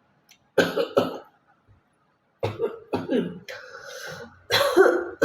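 A woman coughing deliberately in short, sharp groups: two coughs, then a cluster, then a louder run near the end. A rougher, drawn-out throat-clearing rasp comes between them.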